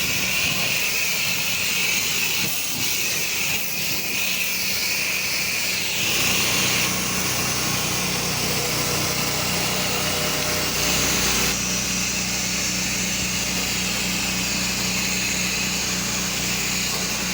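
Pressure washer running steadily, its engine hum under the hiss of the water spray pre-rinsing stucco walls. The hiss of the spray changes about six seconds in and again about twelve seconds in.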